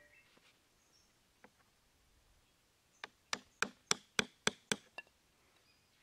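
Hatchet striking a wooden stick to drive it in: a quick run of about eight sharp knocks, three or four a second, after a single faint tick.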